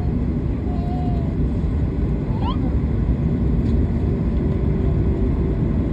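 Steady cabin noise of a jet airliner rolling on the ground, with the engines and wheels giving a low, even rumble. A short rising squeak cuts through about two and a half seconds in.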